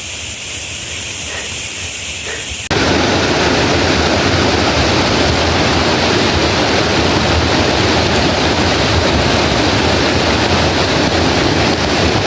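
Fast-flowing river water rushing, a loud steady noise; about three seconds in it changes abruptly to a fuller, deeper rush.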